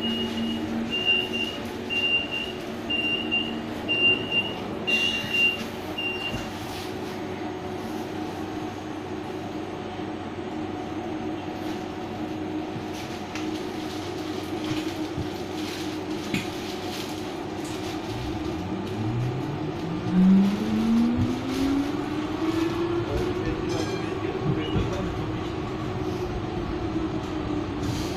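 BN T2000 tram: a row of about seven short high beeps, typical of a door-closing warning, over the first six seconds, then steady running noise as the tram rolls on. Later the traction motors whine, rising in pitch as it accelerates, then level off.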